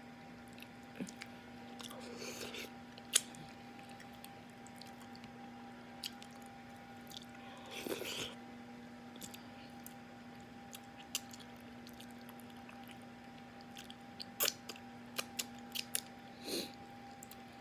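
Close-miked eating of fufu and egusi soup: chewing and mouth smacking, with scattered sharp wet clicks and a few short noisy bursts. There is a quick run of clicks near the end.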